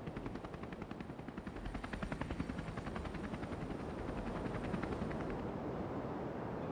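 Helicopter rotor beating in a rapid, even pulse of about eight or nine beats a second over a steady rush of wind noise. The beat fades out about five seconds in.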